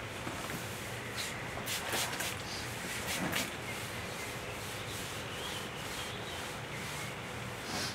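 Hand rubbing on a spar-urethane-coated wooden table top with a pad in a gloved hand. Short scrubbing strokes, mostly between about one and three and a half seconds in.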